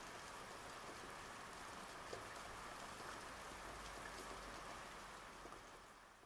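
Faint steady rain falling, with scattered drop ticks, fading away near the end.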